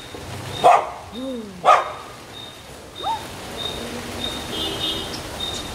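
Small white spitz-type dog barking: two loud, sharp barks about a second apart, then a quieter one about three seconds in.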